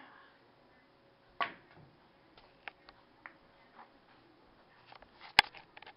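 Pool cue striking the cue ball with a click about a second and a half in, followed by a few faint clicks of billiard balls knocking together, then a single sharp, loud click near the end.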